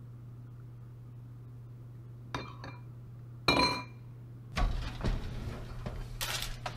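Kitchenware clinking twice, a small clink then a louder ringing one, as the sauce bowl is set down, then the oven door being pulled open with clunks and rattling of the racks. A steady low hum runs underneath.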